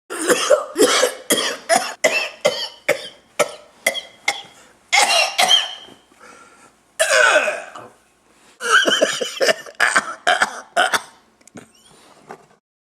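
A person coughing in a long fit: a quick run of about a dozen short, sharp coughs, then several longer coughing spells that trail off.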